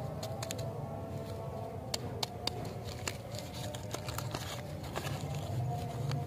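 Paper candy wrapper being torn open and unwrapped by hand: irregular sharp crinkles and crackles scattered throughout.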